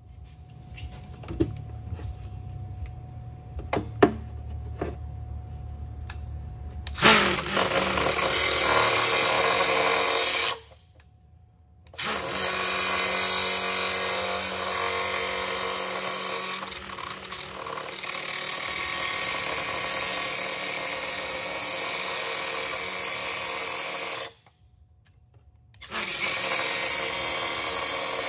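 Cutoff wheel cutting through a VW Touareg's old driveshaft carrier bearing support, run in three spells with short pauses: the first about seven seconds in, a long one of about twelve seconds, and a short one near the end. Before the cutting starts there are a few sharp knocks and a low hum.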